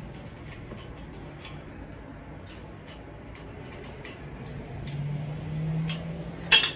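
Faint scattered clicks and ticks from handling the locking parts of an artificial Christmas tree, with a steady low hum that grows louder near the end. One sharp knock comes just before the end.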